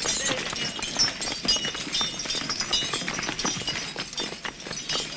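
A busy, irregular clatter of many short knocks and clinks, with brief high squeaky tones over it.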